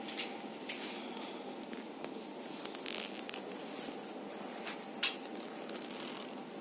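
Gloved hands handling a dog's foreleg on a clinic exam table: scattered rustles and light clicks, a sharp click about five seconds in, over a steady room hum.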